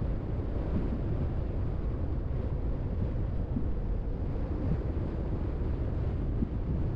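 Car driving along a road: a steady low rumble of road and tyre noise, with some wind noise.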